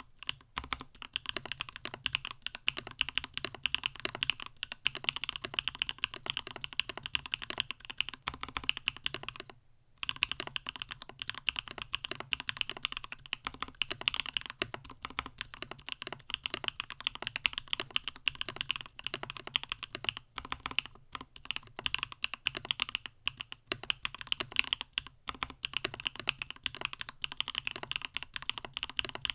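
Mechanical keyboard with Gateron Smoothie linear switches in a stacked-acrylic CannonKeys StackedTKL case, typed on steadily in a dense run of key clicks, with one short pause about ten seconds in.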